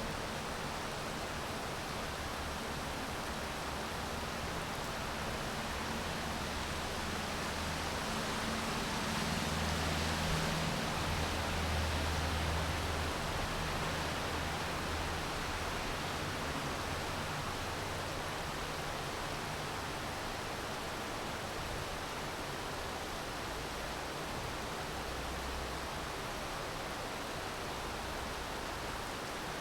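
Steady rain falling, an even hiss. A low rumble swells and fades a third of the way through.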